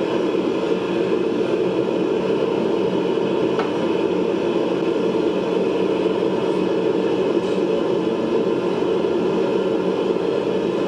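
Blacksmith's forge running with a steady rushing noise, with a couple of faint clicks of metal.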